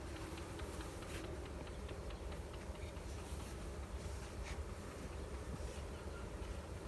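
Honeybees buzzing around an opened hive, with scattered light clicks and a steady low rumble underneath.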